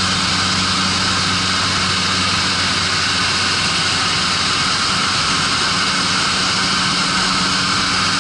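Skydiving plane's engine running steadily, heard from inside the cabin as a loud, even drone with a low steady hum beneath it.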